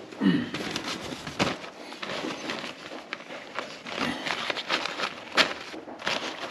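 Paper shop towels rustling and crinkling as they are tucked by hand around the engine's cylinder studs, with irregular small handling clicks.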